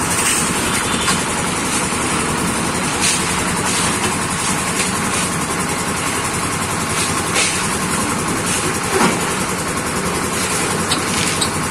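Engine-driven concrete mixer running steadily with its drum turning, with a few sharp knocks and clatters as material is tipped in.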